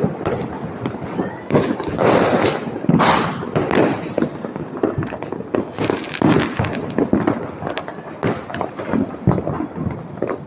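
Firecrackers and fireworks going off in a dense, irregular run of sharp bangs and crackles, overlapping with hardly a gap.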